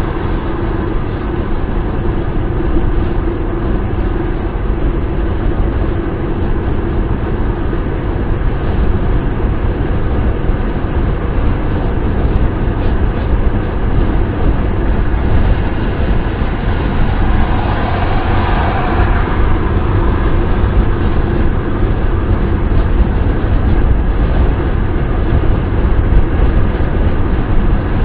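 Steady wind and road noise of a car driving at speed: a deep, even rumble with a hiss over it. It swells briefly about two-thirds of the way through.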